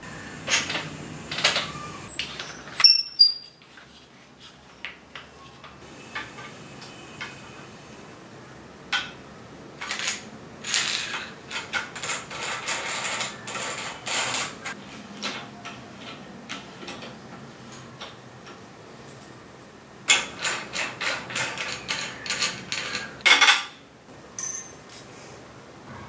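Metal tool parts clinking and clicking as a headset press is fitted and turned on a bicycle frame's head tube. The clicks come in clusters of quick taps, with one sharp, ringing metal clink about three seconds in.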